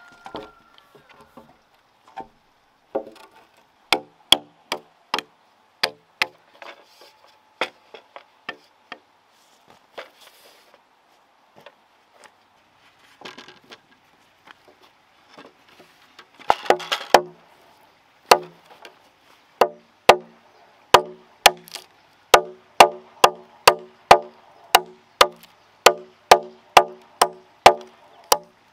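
Machete chopping into a log to cut a notch, each blow a sharp wooden knock with a short ring. The blows are scattered at first, with a rustle of wood being handled about halfway, then settle into steady chopping at about two blows a second.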